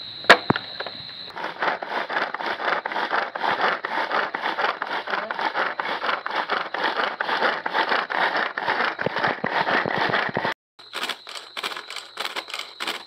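Manual pull-cord food chopper being worked over and over, its spinning blades chopping red and green chillies and garlic cloves inside the plastic bowl: a fast, continuous rattling clatter. It breaks off sharply about ten and a half seconds in and starts again a moment later.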